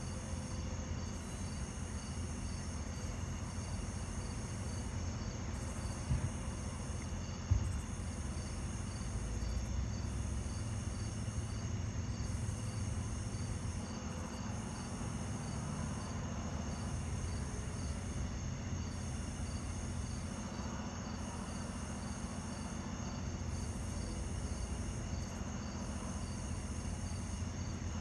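Night insects chirping in a steady, finely pulsing chorus over a continuous low rumble, with two brief knocks about six and seven and a half seconds in.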